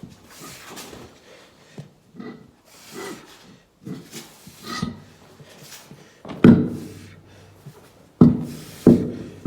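Heavy skid steer tire being wrestled onto its wheel hub: scattered rubbing and light knocks, then three loud heavy thumps in the second half. Short faint whines are heard between them.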